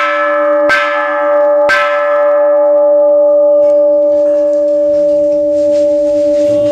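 A bell struck three times in quick succession in the first two seconds, its deep tone ringing on steadily afterwards.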